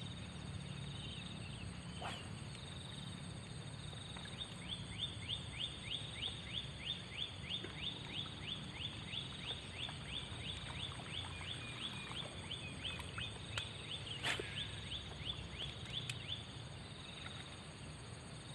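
An animal call: a fast series of short high notes, each falling in pitch, about three a second, lasting some twelve seconds. Under it runs a steady high whine.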